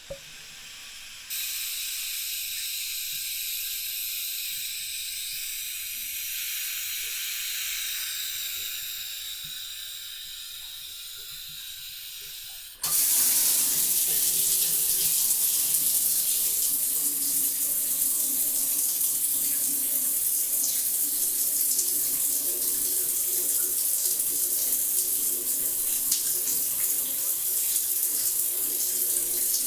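Water running from a bathtub tap in a small tiled bathroom. About a second in the flow turns up, and about thirteen seconds in it jumps suddenly to a much louder, steady rush of water.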